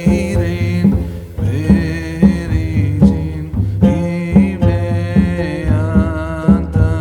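Background music: a singing voice over a steady hand-drum beat.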